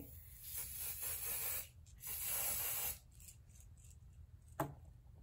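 A spray bottle misting onto a stocking wig cap in two hissing sprays, each about a second long. A single brief tap follows near the end.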